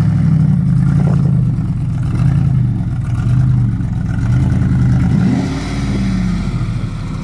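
Off-road 4x4's engine revving up and down under load, the revs rising and falling several times and easing off a little near the end.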